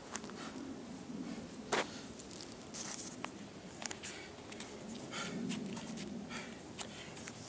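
Scattered sharp clicks and knocks and soft scuffs from a person exercising at a metal pull-up bar and moving about on concrete, with one louder knock about two seconds in.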